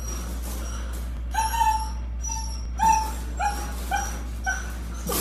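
Husky puppy whimpering and yipping: a run of about seven short, high cries over three seconds, each falling slightly in pitch.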